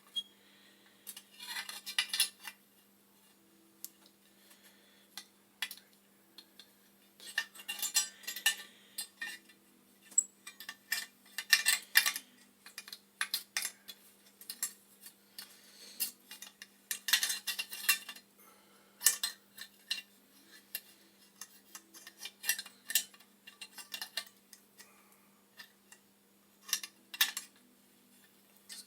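Small metal parts and tools clinking, rattling and scraping in irregular bursts while a spark-ignition pilot assembly is fitted into a gas boiler.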